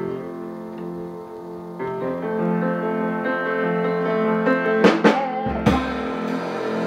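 Live band playing an instrumental passage between sung lines: held guitar and keyboard chords, with a few sharp drum hits about five seconds in.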